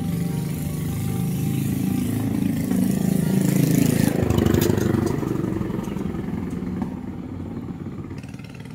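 A motorcycle passing close by, its engine loudest about halfway through and then fading as it rides off down the street.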